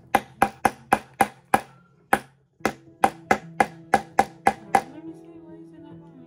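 Hammer tapping quickly, about four light blows a second, each with a brief ringing tone: one run of about seven strikes, a short pause, then a second run of about nine before it stops about five seconds in.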